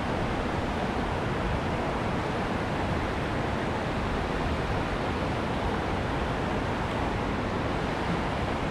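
A river's water rushing steadily, an even, unbroken noise.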